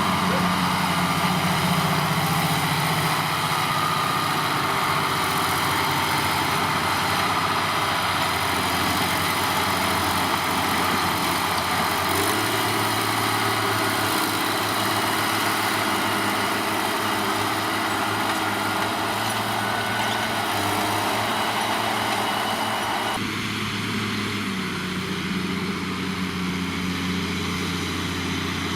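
New Holland tractor's diesel engine running steadily while ploughing. The engine note shifts slightly about twelve seconds in, and the sound changes abruptly shortly before the end.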